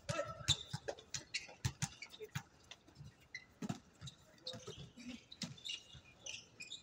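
Basketball game on a hard outdoor court: a ball bouncing in irregular thuds, with short high rubber-sneaker squeaks from players cutting and stopping.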